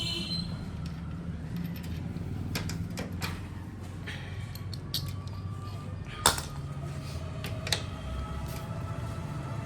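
Hand tools clicking and knocking against a motorcycle engine's parts as the kick lever and clutch cover are being taken off, with a sharp knock about six seconds in and another near eight seconds, over a steady low hum.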